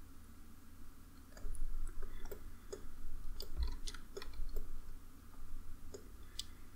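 Computer mouse clicking and its scroll wheel ticking as a 3D view is rotated and zoomed: about a dozen small, irregular clicks that start about a second and a half in, with a few soft low thumps.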